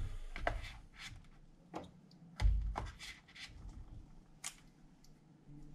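Miniature glass jam jars being set one by one into a foam-and-cardboard insert: a series of light clicks and knocks, with a duller thump about two and a half seconds in.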